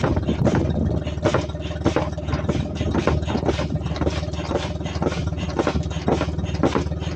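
Foot-operated bellows pump inflating a rubber dinghy, with a rush of air at each repeated press of the foot. A steady low hum runs underneath.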